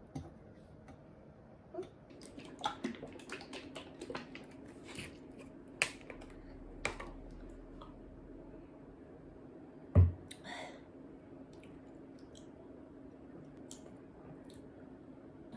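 Scattered light clicks and knocks of things being handled, thickest in the first half, with one louder thump about ten seconds in, over a steady low hum.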